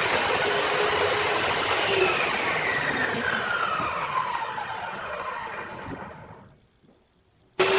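An electric power tool running, then switched off: its motor whine falls steadily in pitch as it spins down and fades out over about four seconds. Near the end the loud tool noise starts again abruptly.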